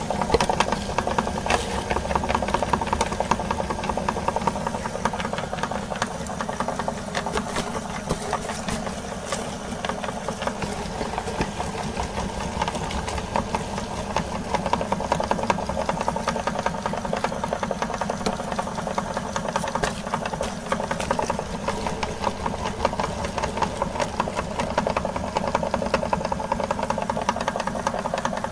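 Electric meat grinder running steadily while grinding apple halves. Its motor hum is overlaid by a fast, dense rattle from the auger forcing apple through the cutting plate.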